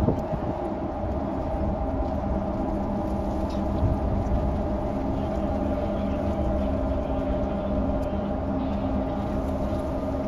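Large ferry's engines and thrusters running while it manoeuvres to dock: a steady low drone with a few held humming tones.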